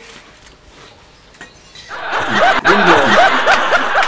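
Loud laughter breaking out about halfway in, a rapid run of repeated 'ha-ha' bursts.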